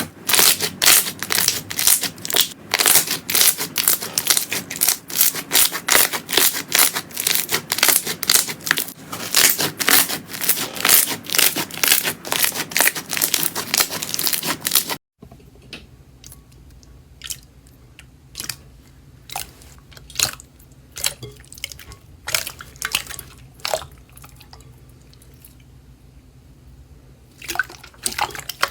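Slime being squeezed and pressed by hand: a dense, crackling run of many small clicks, then after a sudden cut about halfway, quieter scattered pops and clicks.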